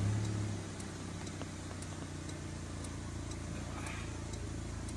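Toyota Corolla's four-cylinder 4A-FE engine idling steadily at about 1,000 rpm, heard inside the cabin, with the air conditioning just switched off. The sound eases a little in the first second, then holds even.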